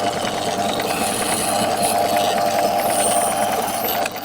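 Myford lathe running steadily with a clearance drill fed from the tailstock into the end of a small spoke-nipple blank, a continuous machine hum.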